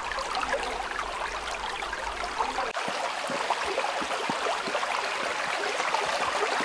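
Shallow creek running and trickling over pebbles and stones, a steady babble of many small splashes.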